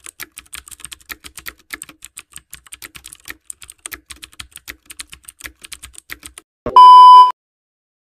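Typing sound effect: quick, irregular keyboard clicks, several a second, then one loud electronic beep lasting about half a second near the end.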